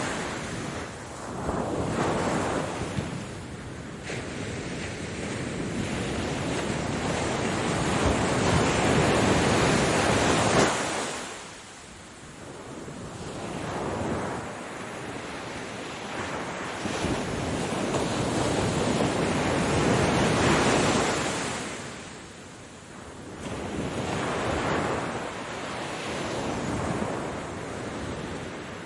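Ocean surf: waves breaking and washing up, the rush swelling and fading about every ten seconds.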